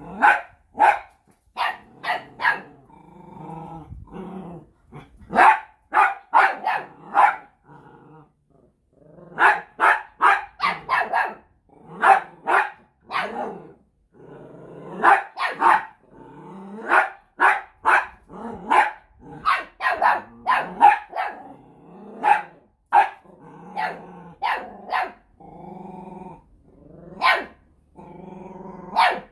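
Small dogs barking at a lizard in quick runs of sharp barks, with low, drawn-out growling between the runs.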